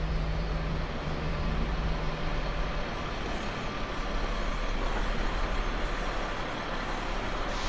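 Truck engine running steadily with a low hum, the truck hitched to a boat trailer under a hall roof.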